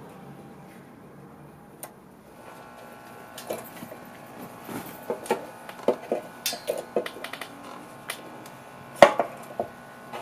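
Scattered small metallic clicks and clinks as a Honda lawn mower engine's carburetor and throttle linkage are handled and unhooked by hand. They start about two seconds in, with one sharper knock near the end.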